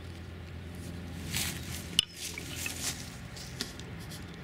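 Hatchets being pulled from a log and handled: rustling with one sharp knock about two seconds in, over a steady low hum.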